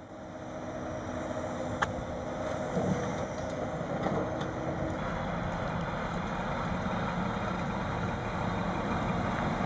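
An engine running steadily with a low hum, growing a little louder over the first couple of seconds, with a single click about two seconds in.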